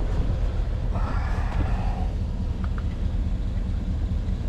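Steady low rumble of an idling engine, with a brief higher wavering whine about a second in.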